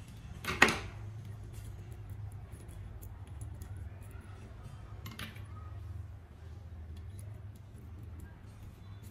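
Small metal clicks and clinks from assembling a coaxial cable connector by hand: one sharp click about half a second in, a fainter click about five seconds in, and light metallic ticks as the knurled nut is turned on. A steady low hum runs underneath.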